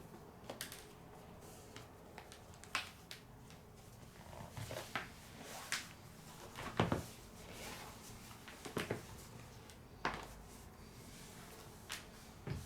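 Cardboard shoebox and packaging being handled: faint, scattered light knocks, clicks and brief rustles, the loudest knock about seven seconds in.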